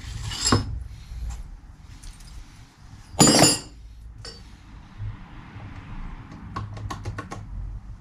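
Small metal hub parts and hand tools clinking on a workbench: a few single clinks, one louder clatter a little past three seconds, then a quick run of about six clicks near the end.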